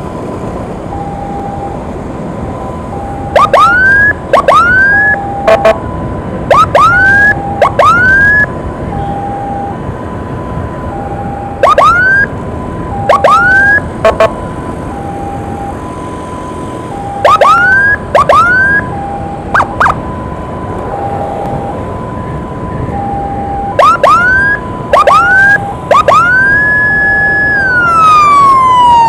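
Emergency sirens of an ambulance escort. A two-tone hi-lo siren steps back and forth about once a second. Over it come loud rising whoop chirps, mostly in pairs every few seconds. Near the end one whoop is held and then winds down in a falling wail, over steady road noise.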